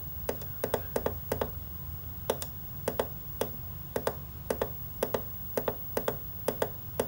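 Push button on a Gotek floppy emulator's front panel clicking about two dozen times at an uneven pace of a few presses a second, stepping through the list of disk images on its USB stick. A low steady hum sits underneath.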